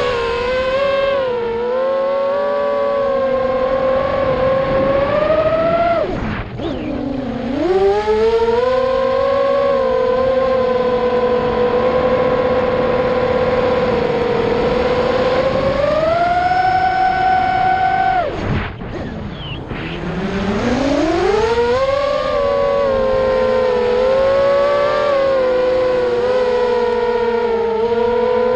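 ImmersionRC Vortex 250 Pro FPV racing quadcopter's brushless motors and propellers whining steadily as it flies. The pitch drops sharply twice, about a quarter of the way in and again about two-thirds in, as the throttle is chopped, then climbs back as power is applied again.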